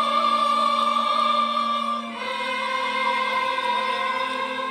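Church choir singing a hymn in long held chords; the chord changes about two seconds in.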